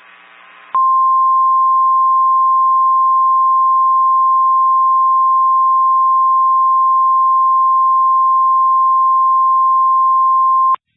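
NOAA Weather Radio warning alarm tone: a single steady 1050 Hz beep held for about ten seconds, starting under a second in and cutting off abruptly just before the end. It is the attention signal that comes before a broadcast weather warning, here a snow squall warning.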